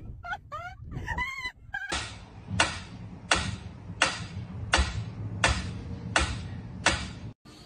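A mechanical pendulum metronome ticking steadily, eight sharp ticks about 0.7 s apart, starting about two seconds in. Before the ticking, a couple of seconds of high, wavering cries.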